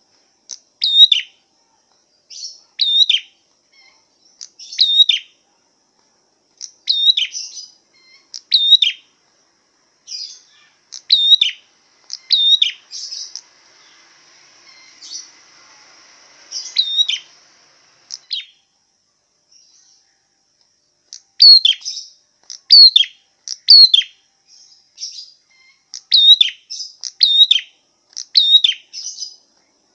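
A songbird's masteran (tutor) recording: short, sharp chirped call notes, often in pairs, repeated every couple of seconds, pausing for a few seconds past the middle and coming faster near the end.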